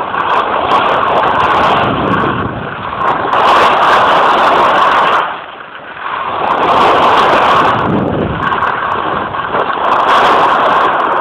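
Rushing noise of skiing fast downhill: wind buffeting the phone's microphone over the sound of skis scraping across firm spring snow. The noise is loud and swells and eases, dropping briefly about halfway through.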